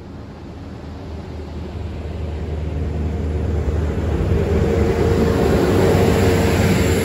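Transport for Wales Class 175 diesel multiple unit running past close by, growing steadily louder, with a steady low engine drone and a held mid-pitched tone over rising running noise.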